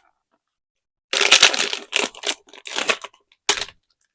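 Blind-box packaging being opened by hand. After about a second of quiet come four short bursts of rustling and crinkling.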